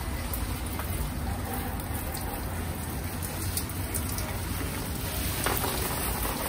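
Water spraying in a fine shower from a garden hose nozzle onto plant leaves: a steady hiss of falling water with light drips.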